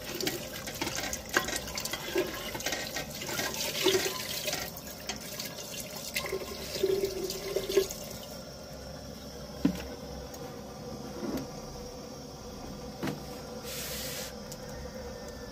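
Water poured from a plastic jug into an aluminium pot of broth, splashing and filling with a few light clinks, for about eight seconds. The pouring then stops, and a few single knocks follow.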